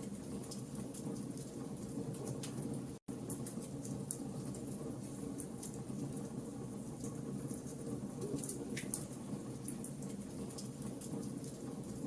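Wood fire crackling in a fireplace: a steady low rushing of the flames with scattered sharp crackles and pops. The sound cuts out for an instant about three seconds in.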